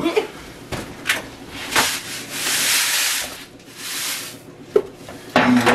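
Dry Rice Krispies cereal poured from its box into a pot of melted marshmallows: a dry rushing rustle, loudest about two to three seconds in, with a few short sharp clicks.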